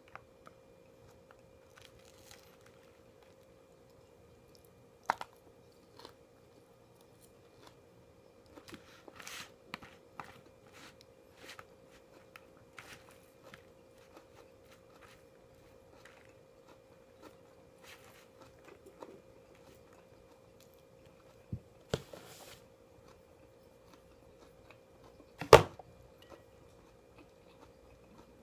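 Close-up eating sounds of inari sushi and katsu rolls: soft chewing and crunching with scattered small clicks and taps, over a faint steady hum. A few sharp knocks stand out, the loudest near the end.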